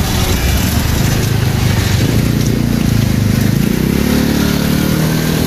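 A motor vehicle's engine running nearby, its pitch climbing through the second half as it speeds up or draws closer.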